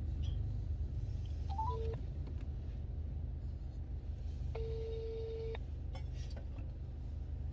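Telephone call ringing out over a phone speaker: a short stepped beep sequence about two seconds in, then one ringback tone lasting about a second, over a steady low hum.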